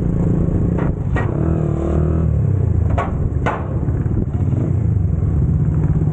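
A small 100cc motorcycle engine running at low speed as the bike rides up a ferry's steel loading ramp onto the deck. There are two pairs of sharp clanks, about a second in and again about three seconds in, as the wheels go over the steel ramp plates.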